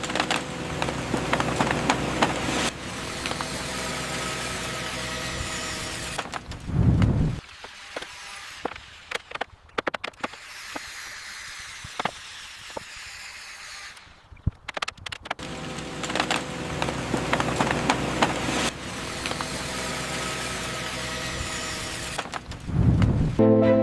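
Layered construction-site sound effects: machinery running with a steady hum, overlaid with many clicks and knocks. A rising swell comes about seven seconds in and again near the end. The middle stretch is quieter, with scattered tapping.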